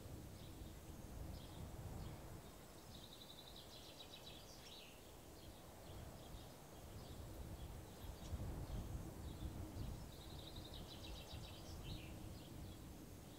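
Small birds chirping, with two quick twittering phrases several seconds apart, over a low rumble that swells and fades in gusts.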